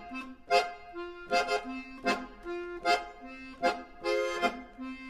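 Background music: a repeating melody of held, reedy notes over a regular beat, with an accent about every three-quarters of a second.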